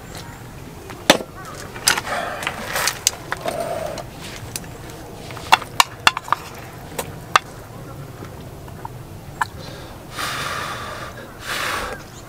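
Chopsticks clicking and scraping against a metal military mess tin as jjapaguri noodles are stirred and picked up, with sharp separate clicks, followed by two noisy slurps of noodles near the end.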